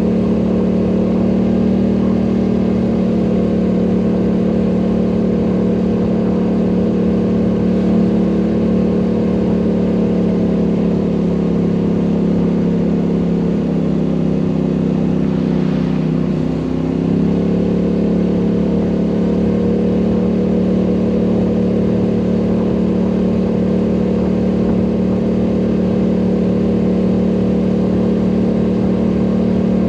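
ATV engine running steadily under way. About halfway through, the engine note drops for a few seconds as the throttle eases, then climbs back to its earlier pitch.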